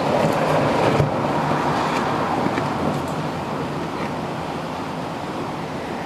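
Strong, gusty wind rushing steadily. It is loudest in the first couple of seconds and eases slightly after that, with a few faint knocks.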